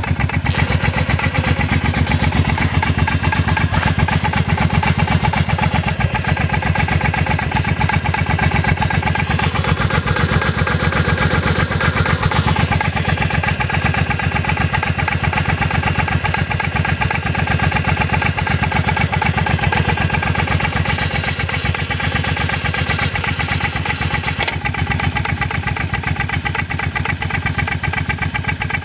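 A vehicle engine idling steadily with an even, rapid pulse.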